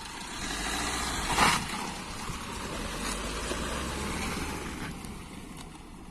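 Road vehicle noise that swells, then fades, with a short louder rush about a second and a half in.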